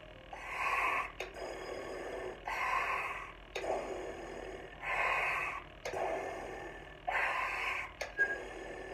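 Breath blown hard into cupped hands in about five rushing puffs, each under a second, with no clear tone. A brief thin squeak comes near the end.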